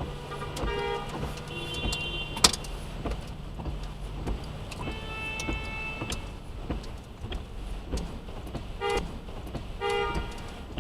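Hail and rain hitting the body and glass of a car: a scatter of sharp clicks and knocks, with one loud crack about two and a half seconds in. Several short, steady electronic beep-like tones sound at intervals over the car's low hum.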